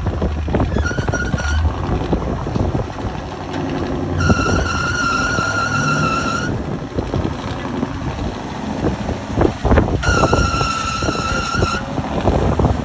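Square-body Chevy tow truck's engine labouring at low speed as it crawls over rock, with scrapes and knocks from the truck working through the notch. A high, steady horn-like note sounds twice, each held about two seconds, with a short blast near the start.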